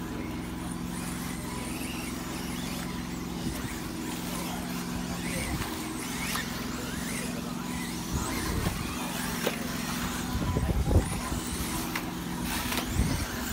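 Radio-controlled 4wd cars running on the track: faint motor whines coming and going over a steady low hum, with a cluster of thumps about ten to eleven seconds in.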